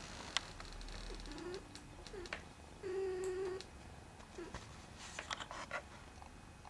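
A cat making a few short, low meows, the longest about three seconds in, with scattered light clicks and rustles.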